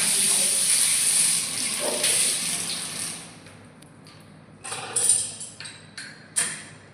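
Water spraying hard from a bathroom tap fitting, shutting off about three seconds in, then a few short splashes and knocks.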